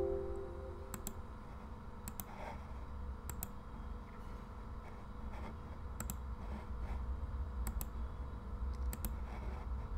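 Computer mouse clicks, a dozen or so, irregular and sparse, over a low steady hum. At the very start the tail of a Windows alert chime fades out.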